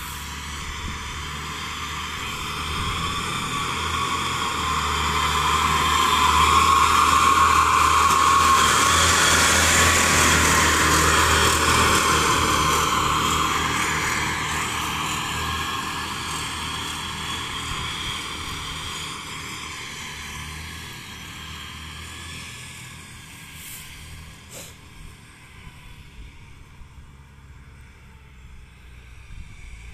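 Rice combine harvester running steadily while it cuts. It grows louder until about a third of the way in as it passes close, then fades as it moves away across the field.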